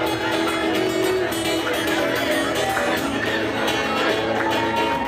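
Two acoustic guitars playing together.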